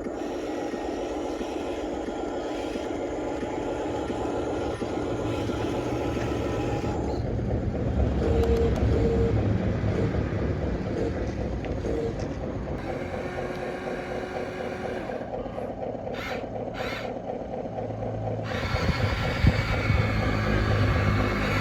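Radio-controlled model excavator and dump trucks running: a steady mechanical whir of motors and gearing that changes several times as the machines start, stop and move, growing louder near the end.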